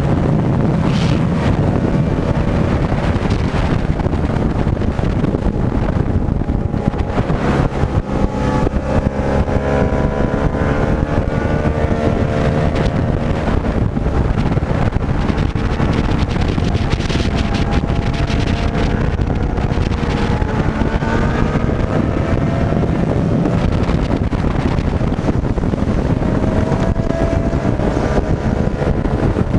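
Yamaha motorcycle engine running at road speed under heavy wind buffeting on the microphone. The engine note rises and falls again and again with the throttle through the bends.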